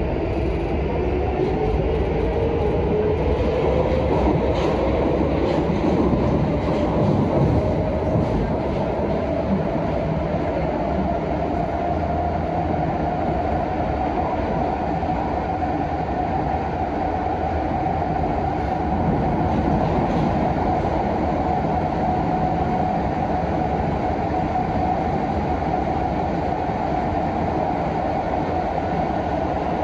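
Prague Metro Line A train, an M1 unit, accelerating: the traction motor whine rises steadily in pitch over the first dozen seconds and then holds level at running speed, over a continuous wheel-and-rail rumble.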